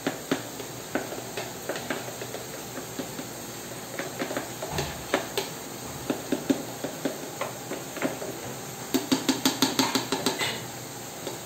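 A spoon scraping and tapping against the inside wall of a mixing container, knocking loose flour stuck to the sides of the batter. Scattered clinks, then a quick run of taps near the end.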